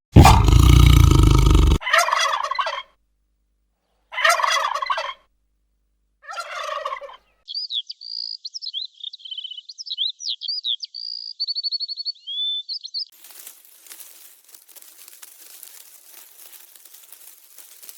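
A series of animal calls: a loud, noisy call for the first two seconds, then three short rattling calls about two seconds apart, then a high twittering bird song for about five seconds, ending in a faint crackling hiss.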